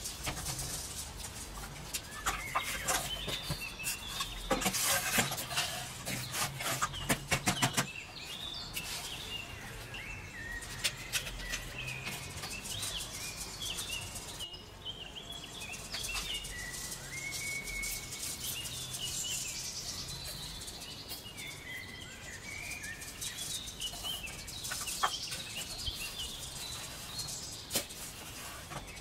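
Birds chirping and singing. In the first eight seconds or so there is a run of sharp taps and knocks as a plastic tub packed with damp sand is handled and turned out.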